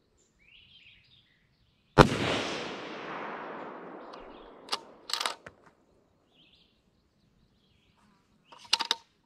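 A single rifle shot from a scoped bolt-action rifle about two seconds in, its echo rolling away over the next two seconds or so. Then the bolt is worked: a couple of metallic clicks a few seconds after the shot and a quick run of clicks near the end.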